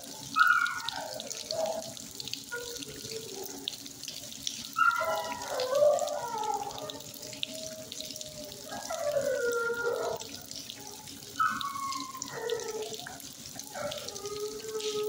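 Shelter dogs howling and whining in drawn-out calls that bend up and down in pitch, coming in about five bouts and echoing in the kennel, over a steady hiss of running water.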